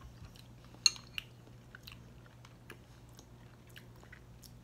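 Quiet chewing of a soft, creamy curried iguana egg, with scattered small mouth clicks. A sharp click about a second in is followed by a fainter one, and a low steady hum runs underneath.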